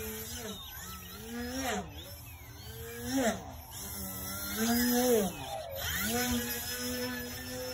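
Electric brushless motor and propeller of a 39-inch aerobatic RC plane whining in flight. The pitch rises and then drops sharply several times as the throttle is worked through manoeuvres, then holds steady near the end.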